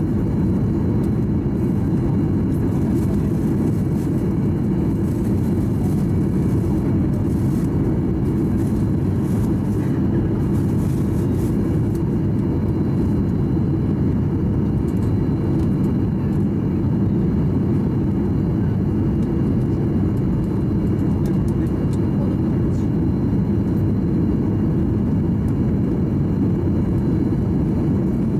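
Steady low cabin drone of a Boeing 737-800 on final approach with flaps extended: engine noise and rushing airflow heard from inside the cabin.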